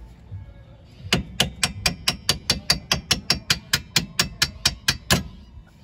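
Hammer rapidly striking the end of a bolt in a 2019 Toyota 86's rear lower suspension arm, driving it out. Starting about a second in, there are about twenty quick, even metal-on-metal blows, roughly five a second, with the last one the loudest.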